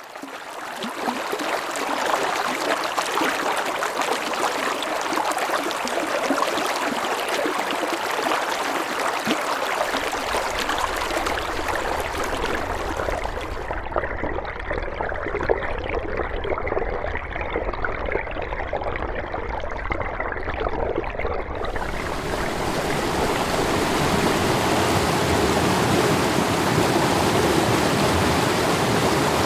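Mountain stream water rushing and gurgling over rocks, fading in over the first couple of seconds. The sound changes character several times, about 10, 14 and 22 seconds in, as from one stretch of stream to another, and is duller and less hissy between about 14 and 22 seconds.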